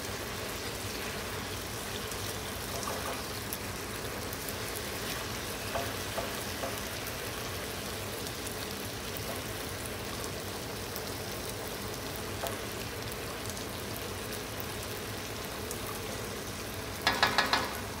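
Glazed pork chops sizzling in a hot pan, a steady frying hiss, with a few faint clinks of a basting spoon against the pan.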